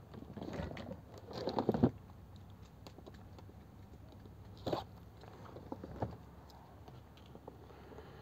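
Large cardboard box being handled and tipped up on a table: crunching and scraping of cardboard for about a second and a half, then two short knocks as it is shifted back down.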